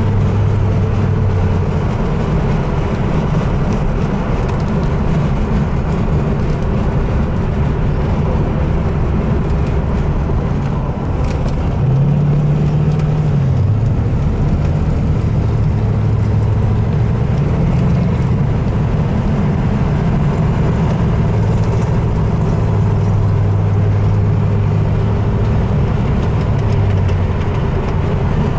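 Classic American car's engine heard from inside the cabin, running steadily while driving. About twelve seconds in the engine note rises, then settles back, and it stays a little louder for the rest of the stretch, as under more throttle.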